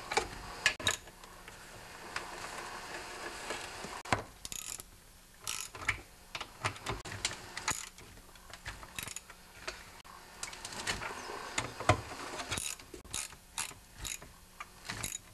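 Socket ratchet clicking in short quick runs as the bolts holding a small engine's fuel tank are tightened, with a few sharper metal clinks of the wrench against the bolts and tank.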